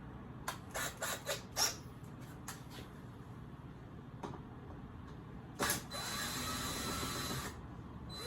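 Sharp metallic clicks and clatter from camper shell lock parts being worked by hand, a quick run of clicks at first, then a single click and a knock. Then a steady whirring mechanical sound for about a second and a half that cuts off sharply.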